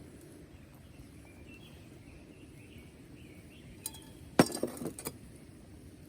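Cookware clinking: one loud sharp clank followed by a few lighter clinks that ring briefly, about four seconds in. Faint bird chirps before it.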